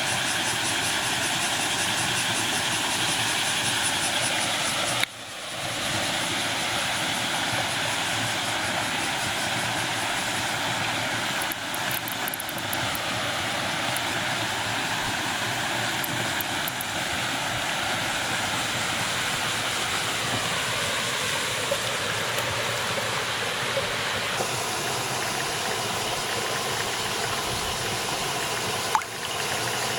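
A chorus of bear cicadas (kumazemi) calling, a loud, continuous shrill hiss, broken by two brief dips, about five seconds in and near the end.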